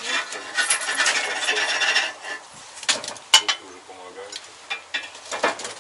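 Cups and dishes handled on a wooden table: a rubbing, scraping stretch for the first two seconds, then a few clicks and one sharp clink a little past three seconds.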